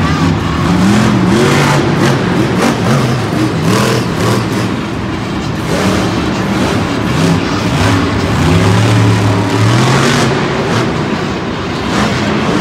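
Monster truck's supercharged engine revving hard, its pitch climbing and dropping again and again as the truck accelerates and backs off.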